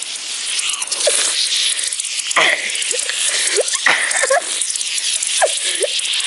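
Shaken Coca-Cola can spraying and fizzing, a loud steady hiss of escaping carbonated soda with many short squeaky chirps through it.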